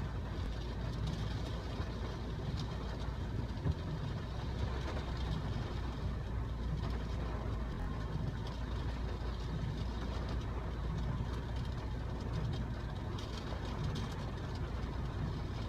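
Steady low hum of a car's engine heard from inside the cabin, with an even hiss over it, and one brief knock about four seconds in.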